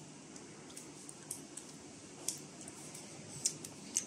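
Soft handling and a few faint, scattered ticks as hands press a temporary tattoo paper down onto a forearm, over quiet room tone.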